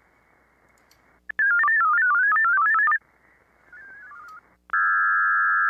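VARA HF modem tones over the hiss of an HF receiver while a connection is being set up. A loud burst of tones hops quickly up and down in pitch for about a second and a half, a fainter burst of hopping tones follows, and a steady tone starts about three-quarters of the way in.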